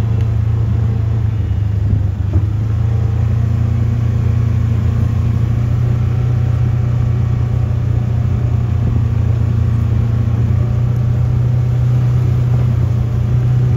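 Steady low hum of a running engine, its pitch rising slightly near the end.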